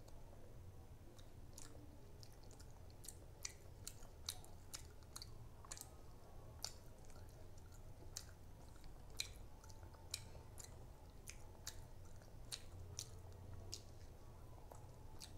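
Close-miked chewing of soft rice and fish curry, with many sharp, irregular wet mouth clicks and smacks over a faint steady low hum.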